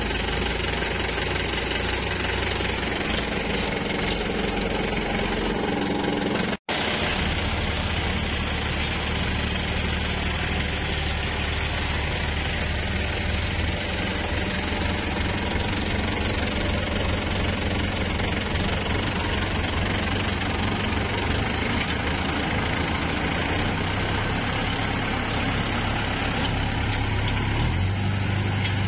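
Tractor diesel engine, most likely the Powertrac Euro 50's, running steadily with an even throb under load while towing a stuck tractor out of mud. The sound drops out briefly about six and a half seconds in.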